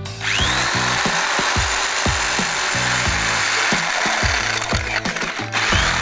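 Electric drill with a flat spade bit boring through a plastic PVC pipe end cap, starting a fraction of a second in and running steadily, with a brief dip near the end. Background electronic music with a steady beat plays under it.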